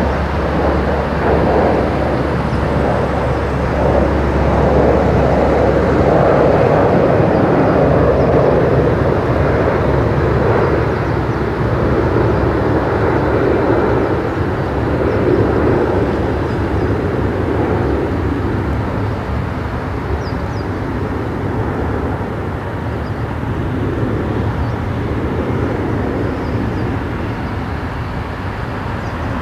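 Jet airliner engine noise: a steady rumble that swells to its loudest about seven seconds in, then slowly fades.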